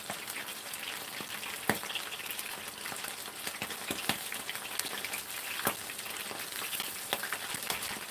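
Squid pieces frying in hot oil in a frying pan, a steady sizzle, with three sharp clicks as metal tongs knock against the pan while turning the pieces.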